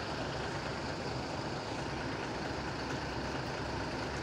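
Intercity coach's diesel engine idling steadily, heard from behind the bus as an even, low drone.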